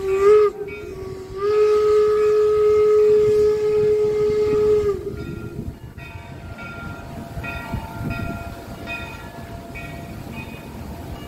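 Steam locomotive whistle sounding one steady note: the end of a blast, then after a short pause a long blast of about three and a half seconds that sags in pitch as it cuts off. Quieter rumbling train noise follows.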